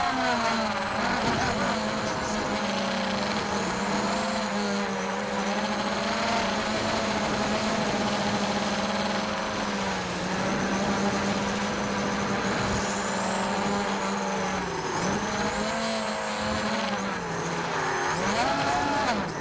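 ZMR 250 racing quadcopter's brushless motors and propellers whining at a fairly steady pitch, which dips and swoops back up several times in the last few seconds as the throttle is eased and opened again.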